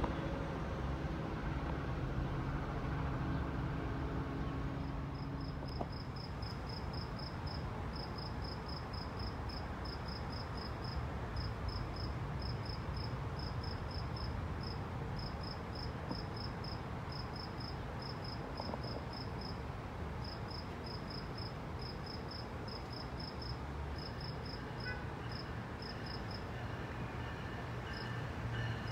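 An insect chirps in short, high, evenly pulsed trills of several beats each over a steady low rumble. An engine hum fades out over the first five seconds, and near the end a train's steady tones begin to come in.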